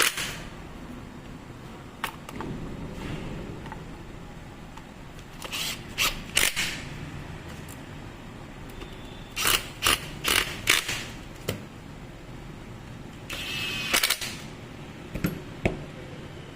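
Scattered clicks and clinks of hard parts being handled, some single and some in quick clusters, with a brief metallic ring about fourteen seconds in.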